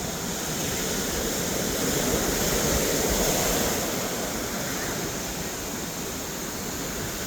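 Ocean surf washing onto a beach: a steady rush of breaking waves that swells up about two seconds in and eases off again.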